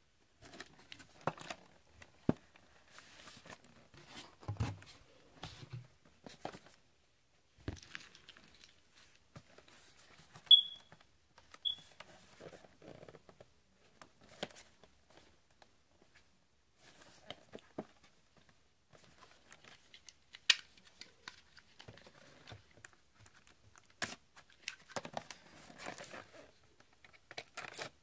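Cardboard packaging being handled and cut: scattered taps, scrapes, rustling and tearing as a product box is lifted from a shipping carton and its seal slit with a utility knife. Two short high squeaks come about ten and eleven seconds in.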